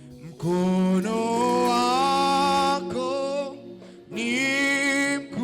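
Gospel praise singing in Swahili with instrumental accompaniment: long held sung notes, with a short break in the middle.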